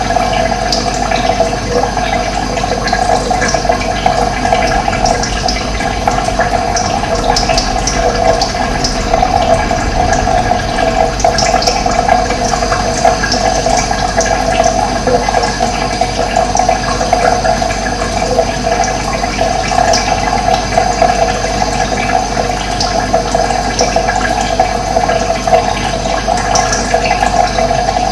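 Running water flowing steadily with a constant rushing sound, with short high bird chirps scattered through it.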